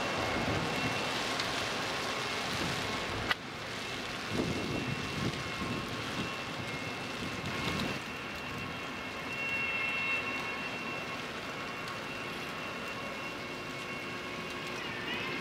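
Large car carrier ship passing close by: a steady rushing noise with a faint, steady high whine, and a single sharp click about three seconds in.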